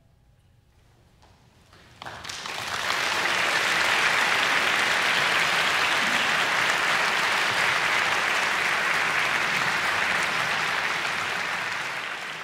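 Audience applause in a concert hall: after about two seconds of near silence it breaks out suddenly, fills out within a second or so, and holds steady, easing slightly near the end.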